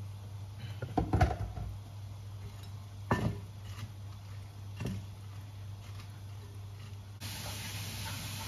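Kitchen utensils knocking against a cooking pot: a quick cluster of clanks about a second in, then single knocks about two and four seconds later, over a steady low hum. Near the end a steady hiss starts suddenly.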